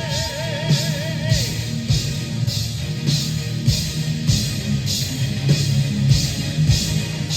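Symphonic metal band playing live: a held sung note with vibrato ends about a second and a half in, over distorted guitars and drums with a steady beat of cymbal hits.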